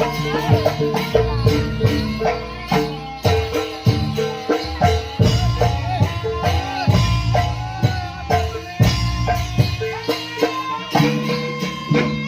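Jaranan ensemble music played live: rapid drum strokes and struck percussion under sustained pitched notes and a bending melody line.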